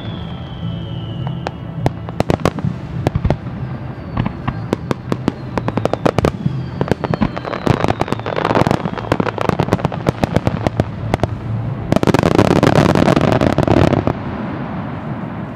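Daytime fireworks shells bursting: a run of sharp bangs in quick succession, with a few falling whistles. The bangs thicken into dense rapid-fire volleys about halfway through and again near the end, where the loudest volley stops abruptly.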